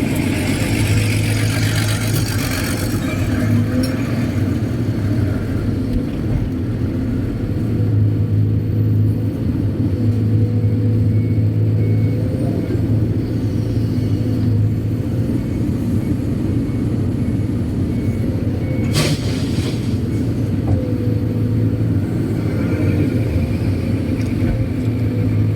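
Kobelco SK200-8 Super X excavator's diesel engine running under working load as a steady low hum that swells and eases as it digs. A hiss fades out within the first few seconds, and there is one sharp knock about three quarters of the way through.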